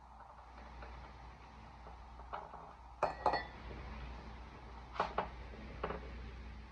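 A few sharp clicks and knocks, the loudest pair about three seconds in with a short metallic ring, as an electric hot knife is set down on the table and cut nylon webbing is handled.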